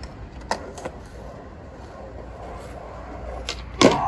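Skateboard on concrete: a couple of sharp clacks early, then a loud clatter near the end as a skater bails on an ollie and the board flips away. A steady low wind rumble runs on the microphone throughout.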